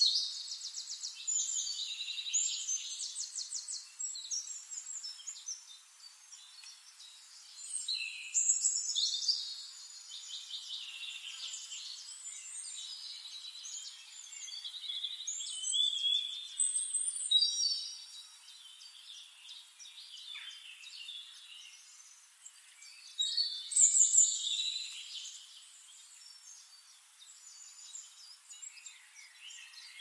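Several songbirds singing, with high, rapid trilled and chirping phrases coming in bursts a few seconds apart, loudest near the start.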